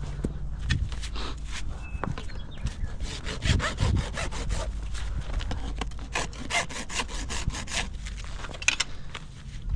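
Farrier's rasp scraped back and forth over a horse's hoof in a run of quick strokes while shaping the hoof during shoeing.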